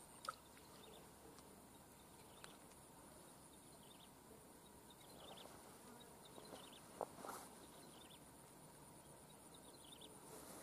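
Near silence, with a faint, steady, high-pitched insect trill and a few soft clicks.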